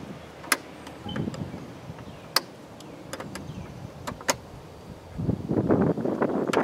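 Plastic push-pin trim clips being worked out of the air-intake duct with pliers: three sharp plastic clicks about two seconds apart, then louder rustling and scraping of the plastic duct near the end.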